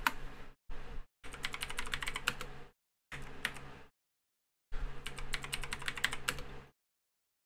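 Typing on a computer keyboard: bursts of quick keystrokes as a sudo password is entered, rejected and typed again. The sound drops to dead silence between the bursts and after the last one, about a second before the end.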